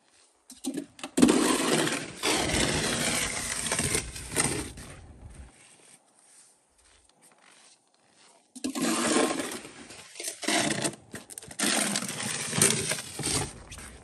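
Wide snow pusher shovel scraping along a concrete walkway as it pushes snow, in two long strokes of about four to five seconds each with a pause between.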